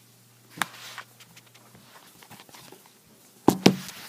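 Handling noise from the recording phone being picked up and tilted: a single sharp knock about half a second in, light rubbing, then a cluster of loud sharp knocks near the end.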